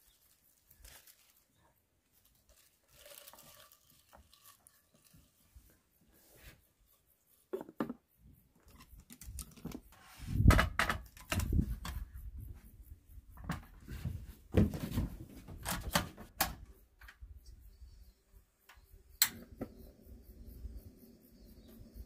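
Soft rustling of herb leaves being pressed into a ceramic teapot. Then irregular knocks and clatter as the pot and its lid are handled and set onto a portable butane gas stove. Near the end comes a sharp click and a steady low hiss as the burner is lit.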